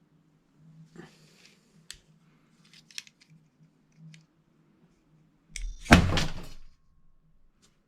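Light clicks and handling taps, then about six seconds in a sudden loud bang followed by a rushing burst that dies away within about a second: an airsoft directional mine firing its gas grenade.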